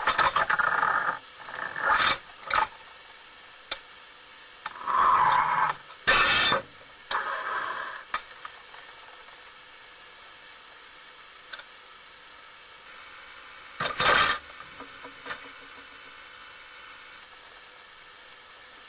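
A tiger shark biting and rubbing at a wire bait cage underwater: repeated bursts of harsh scraping and grating through the first eight seconds, and one more at about fourteen seconds. A steady hiss runs between the bursts.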